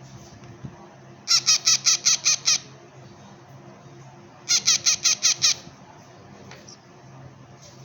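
Baby parrot chick giving food-begging calls: two bursts of rapid, high-pitched squeaky chirps, about six a second, the first starting a little over a second in and the second about three seconds later.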